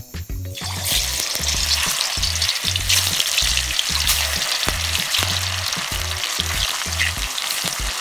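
Sliced pieces frying in hot oil in a black iron wok. The oil breaks into a loud, steady sizzle about a second in as the slices go in. Background music with a repeating bass line plays underneath.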